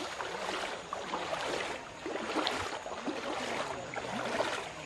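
Water splashing and sloshing around a small boat moving through floodwater, swelling and easing about once a second.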